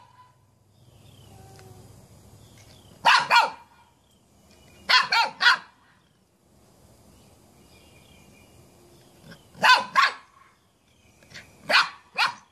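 A dog barking: two quick double barks, then two single barks near the end.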